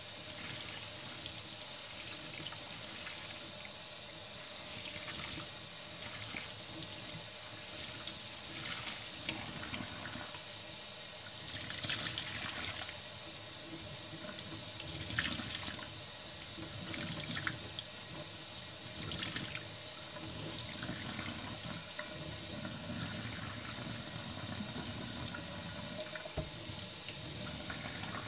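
Tap water running steadily into a stainless steel sink, while gloved hands squeeze and wring a soaked sponge under the stream. A few louder wet squeezes come through the middle of the stretch.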